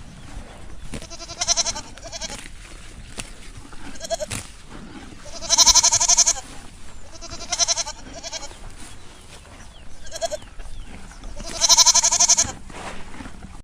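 A farm animal bleating, about six separate calls with a wavering pitch, the two longest and loudest about six and twelve seconds in.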